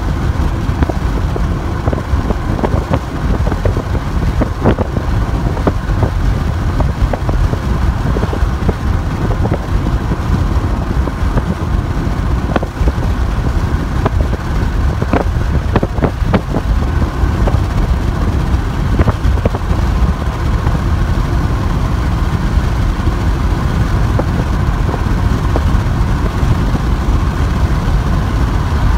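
Steady road and wind noise of a moving car, a dense low rumble with scattered light clicks.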